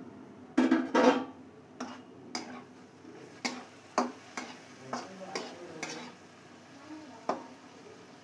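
A steel lid lifted off a kadai with a metal clatter about half a second in, then a metal spatula stirring and knocking against the pan, a string of sharp scrapes and taps. Faint sizzle of chopped onion, carrot and beans frying underneath.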